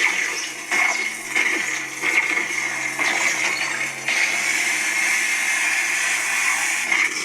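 Lightsaber sound font ('God of Speed' by Syndicate Custom Relics) playing through a Sabertrio saber's speaker: a steady electric hum under a hissing, rushing blade sound that swells and dips as the saber is swung, turning louder and more even about four seconds in.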